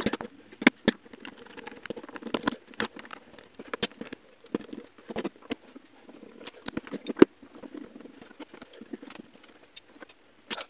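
Small irregular clicks and taps of a precision screwdriver backing small screws out of a smartphone's plastic midframe, with the bit and screws knocking against the frame.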